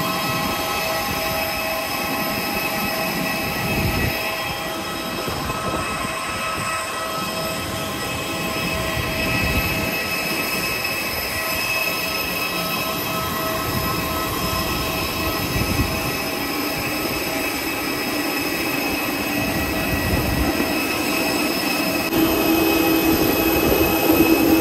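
Steady high-pitched whine of jet aircraft turbines on an airport apron, several whine tones over an uneven low rumble. Near the end a lower hum joins and the sound grows louder.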